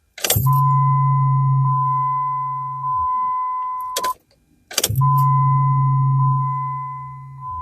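Jeep Liberty's electric in-tank fuel pump priming twice on key-on, each time a steady low hum for about three seconds, with clicks as it switches on and off. A steady high tone sounds alongside. The pump runs, but no fuel pressure reaches the fuel rail.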